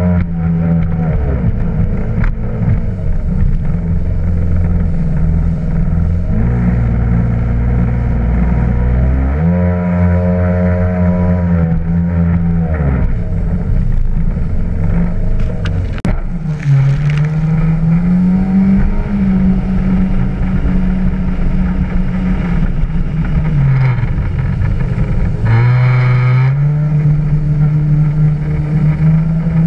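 Yamaha WaveRunner personal watercraft running at speed over open water, its engine note rising and falling several times as the throttle changes, over a steady rush of water.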